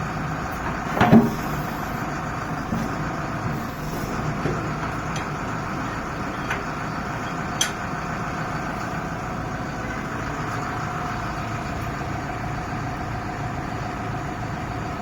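Backhoe loader's diesel engine running steadily, with a knock about a second in and a sharp click about seven and a half seconds in.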